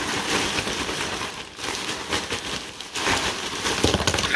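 Saltine crackers tumbling and rattling inside a plastic zip-lock bag as it is shaken, the bag crinkling throughout. Near the end a louder rush as crackers spill out of the bag, which was not sealed well.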